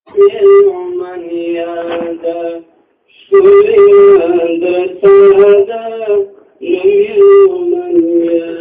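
A Pashto naat sung by a single young voice without instruments, in long held, ornamented phrases broken by two short pauses.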